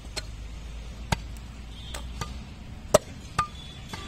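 A large butcher's knife chopping through a slab of beef brisket on a wooden log chopping block: about six sharp, irregularly spaced strikes, the loudest just before three seconds in.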